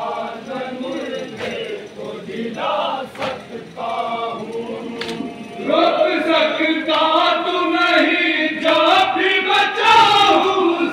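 Men chanting a noha, a Muharram lament, through a microphone and PA: a lead voice with the crowd singing along. It is quieter and broken with a few sharp knocks at first, then grows louder and fuller about six seconds in.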